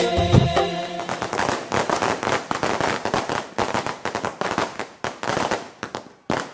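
Background music stops under a second in, giving way to firework crackle: a dense run of rapid, irregular pops that thins out and fades near the end.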